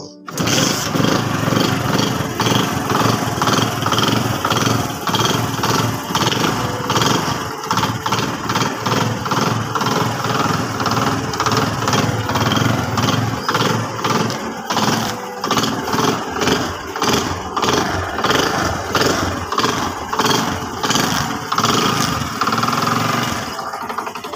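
Honda CD 70 motorcycle's 72 cc single-cylinder four-stroke engine running while it warms up after being washed. It comes in suddenly just after the start, and its sound swells and drops again and again.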